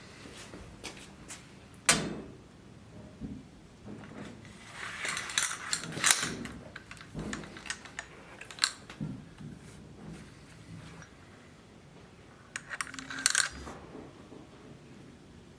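Scattered light metallic clinks and knocks from small hard objects being handled, with a sharp knock about two seconds in and brief clusters of rattling clinks around five to six seconds in and again near the end.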